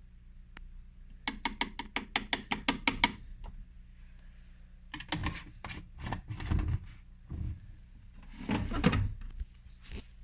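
Whirlpool washing machine running its main wash: a low steady hum, a quick run of about a dozen clicks, then heavier thumps and swishes around the middle and again near the end.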